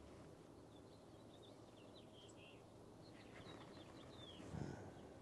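Near silence: faint outdoor ambience with a few small bird chirps, and a brief faint low rumble about four and a half seconds in.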